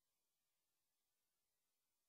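Near silence: faint steady hiss of the recording's noise floor.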